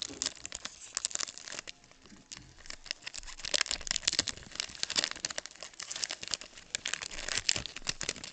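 Topps Chrome trading card pack wrapper crinkling as it is handled and torn open, a dense run of sharp crackles.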